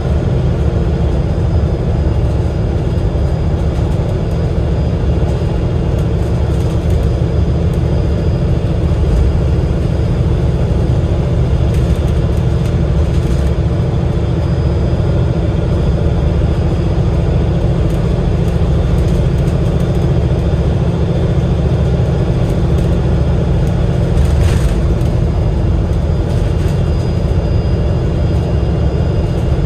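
Alexander Dennis Enviro500 MMC double-decker bus with a Cummins L9 straight-six diesel and Voith DIWA automatic gearbox, running on the road as heard from inside: a steady low engine and drivetrain drone mixed with road noise.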